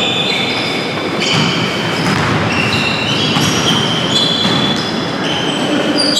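Basketball sneakers squeaking on a wooden gym floor during play: many short high squeaks at shifting pitches, one after another, over the steady noise of a busy gym.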